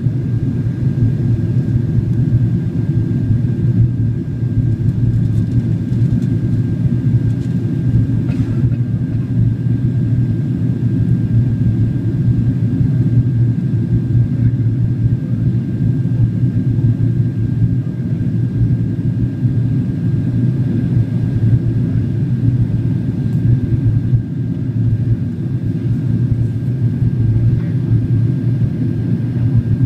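Steady cabin noise of a Boeing 767-400ER in flight, heard from a window seat over the wing: a deep, even rumble of engines and airflow with a faint, steady high whine.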